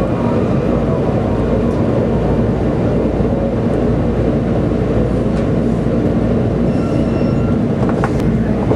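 Washington Metro Red Line train running, heard from inside the front car: a steady rumble of wheels on the track, with a few faint ticks near the end.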